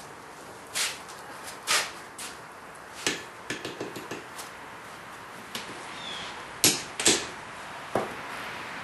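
Irregular knocks and clinks of blacksmith's tools and iron being handled at the forge and anvil, a sharp one every second or so with a quick cluster a little before the middle and the loudest pair about two-thirds of the way through.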